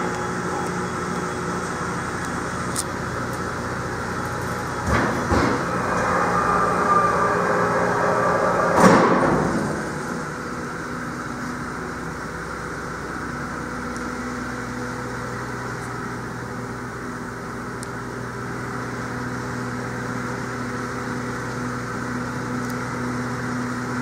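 The steel feed door of an Orwak Power 3820 vertical baler is unlatched with a couple of clunks about five seconds in, then slid up and stopped with a louder bang about nine seconds in. A steady low hum runs under it.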